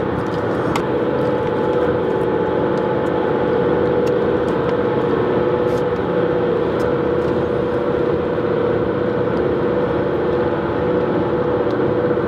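Steady hum inside a car's cabin with the engine running, carrying a few held tones, with a few soft clicks and crinkles of a paper food wrapper.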